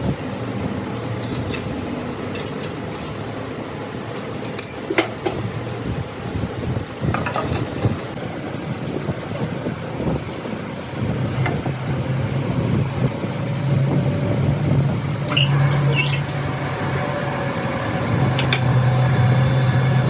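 A steady motor or engine hum that grows louder about halfway through, with a few sharp metallic knocks.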